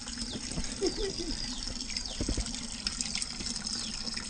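Water running steadily from a tap into a sink.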